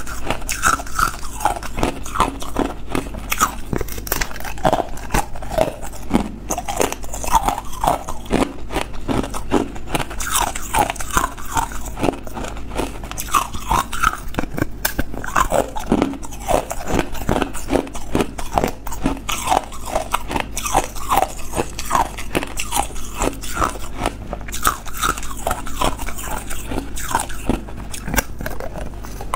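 Hard ice cubes being bitten and chewed straight out of a plastic ice cube tray, close to the mouth: continuous, irregular crunching and cracking.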